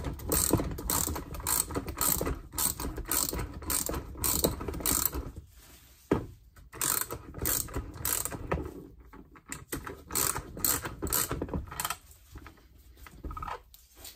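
Rapid metallic ratcheting clicks in runs of strokes as a part clamped in a bench vise is worked by hand, with short pauses about five seconds in and near the end.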